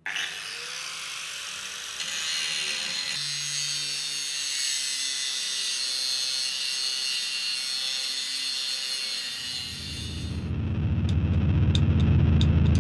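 Steady high-pitched grinding hiss, then heavy rock music with a deep bass fades in about ten seconds in and grows louder.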